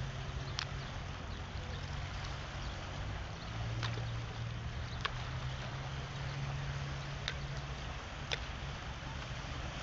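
Sea water washing under a steady low hum, with five short sharp clicks scattered through.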